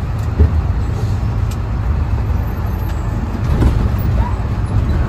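Cabin noise of a Hino AK front-engine bus, its engine running with a steady low rumble as the bus rolls slowly. There is a brief bump about half a second in, and the rumble swells for a moment around three and a half seconds in.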